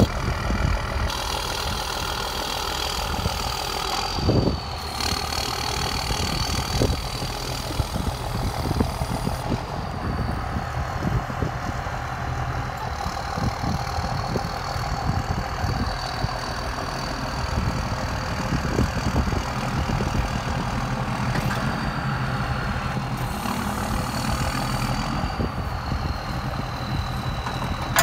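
Truck engine idling steadily, with a thin high whine that shifts a little in pitch now and then, while the service truck's crane is run.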